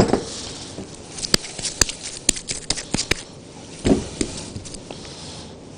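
Light clicks and knocks of bowls and dough being handled on a kitchen counter, coming irregularly, with one louder knock at the start and a small cluster about four seconds in.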